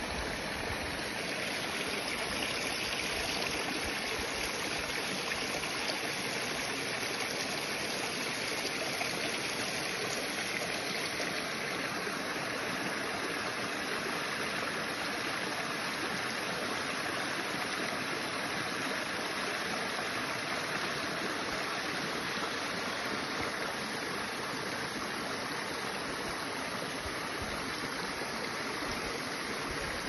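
Small rocky mountain stream running steadily, water spilling over stones in a little cascade into a pool.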